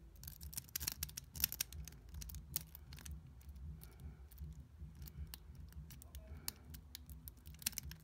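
Metal lock pick clicking and scraping against the pins inside a Yale 3-star euro cylinder lock as it is picked: quick, irregular clicks, thickest in the first second and a half.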